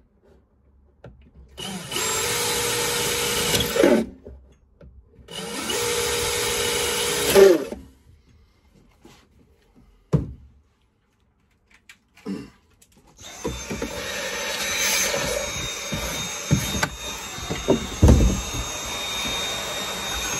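DeWalt 12V cordless drill run twice, about two seconds each, boring holes through a plywood panel, its pitch falling away each time the trigger is let go. A couple of knocks follow. About thirteen seconds in, a vacuum cleaner starts and runs steadily, sucking up the drill shavings.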